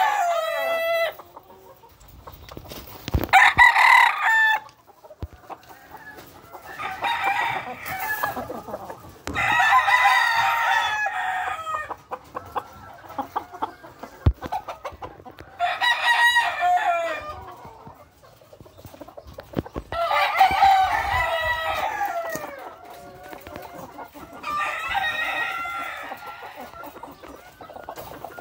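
Young gamecock roosters crowing, one crow after another every few seconds, about seven crows in all.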